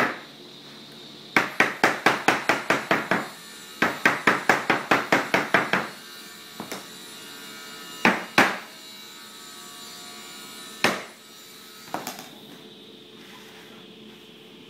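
Hammer tapping on a fusuma panel and its wooden frame: two quick runs of about ten strikes each, roughly five a second, then a few single knocks spaced apart.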